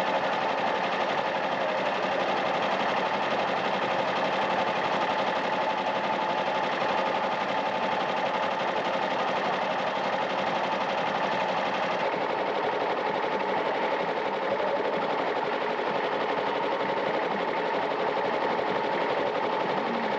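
Machinery running steadily: a fast, even clatter over a steady whine, turning a little brighter about twelve seconds in.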